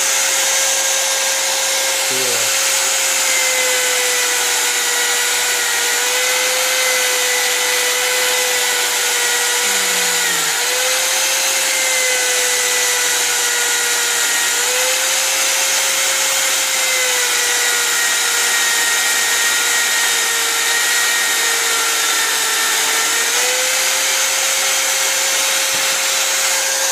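Electric drill used as an improvised bench grinder, spinning a wire wheel against a brake caliper piston to scour off corrosion: a steady motor whine with a hiss of wire brushing. The pitch sags a little and recovers several times as the piston is pressed harder against the wheel.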